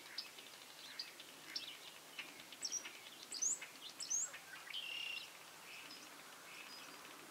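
Faint birdsong: a few short, high chirps that sweep up and down in pitch in the middle, and a brief whistled note about five seconds in, with a few small clicks.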